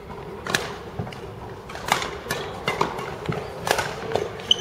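Badminton rackets striking a shuttlecock during a doubles rally: a string of sharp, irregular smacks, about two a second.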